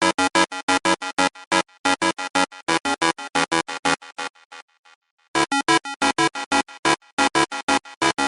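HTC HD7 phone ringtone playing: a quick synthesized keyboard melody of short notes, about five a second, that trails off in fading repeats just after the halfway point, then starts over after a pause of about a second.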